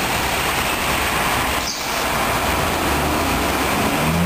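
Steady loud rumble and rush of a city bus's engine running at the platform, with a brief dip in level about halfway through.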